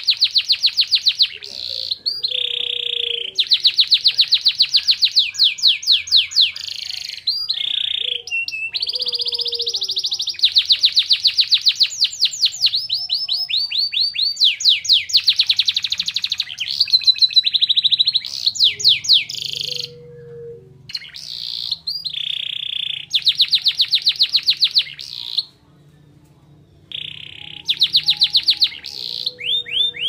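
Domestic canary singing long runs of rapid, high trills and repeated notes in phrases a few seconds long, with short breaks and one longer pause about three-quarters of the way through. Its song includes phrases picked up from Oriental white-eyes (pleci).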